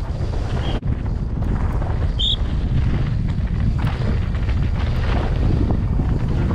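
Wind rushing over a helmet-mounted action camera's microphone on a fast mountain-bike downhill run, with the rattle and clatter of the bike and tyres over a rocky dirt trail. The sound breaks off abruptly just under a second in, where the run is cut.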